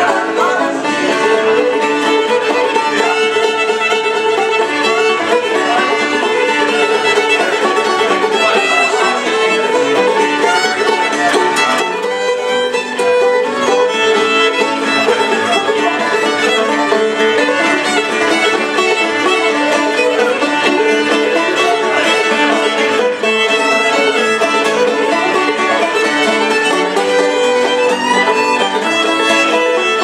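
Old-time southern Appalachian string band: fiddle carrying the tune over five-string banjo and acoustic guitar, playing steadily.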